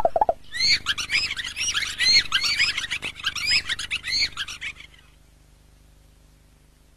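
Birds chirping, many short bright chirps in quick succession that stop about five seconds in, after which it goes almost quiet.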